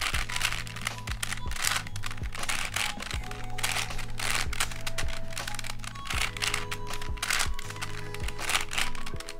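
Plastic layers of a 5x5x4 cuboid twisty puzzle being turned by hand: a run of irregular clacking and rattling strokes as an algorithm is executed, over soft background music.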